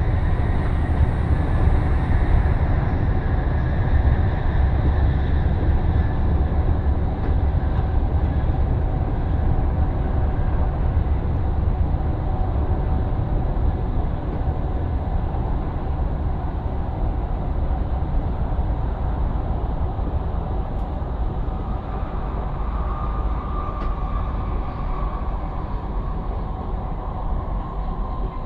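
ED250 Pendolino electric train slowing under heavy braking: a steady low running rumble with the electric traction drive's whine. One whine tone falls during the first few seconds, and another rises over the last several seconds.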